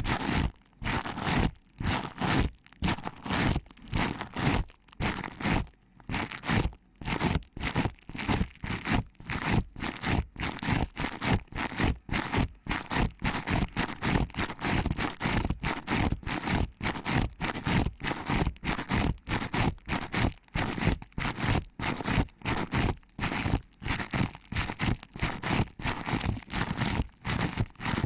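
Hands squeezing and rubbing the ears of a binaural ASMR microphone, a quick run of close rustling, scraping strokes, about two or three a second.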